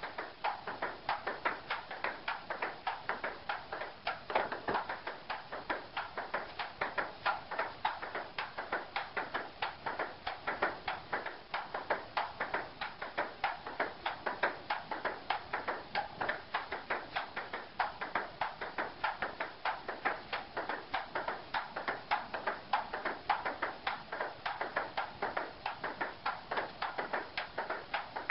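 Table tennis ball in a fast, unbroken solo rally: light plastic clicks of the ball striking the paddle, the table top and the folded-up upright half of the table, several clicks a second in a steady run.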